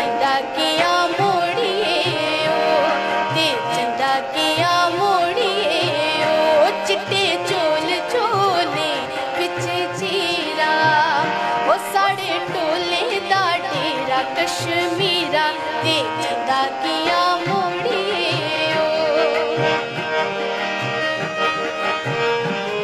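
A woman singing a Dogri folk song in a wavering, ornamented melody, accompanying herself on a harmonium that holds steady reed tones beneath her voice.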